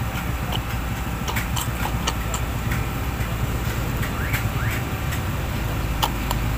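Steady low engine rumble, like a vehicle idling, with a few short clicks over it.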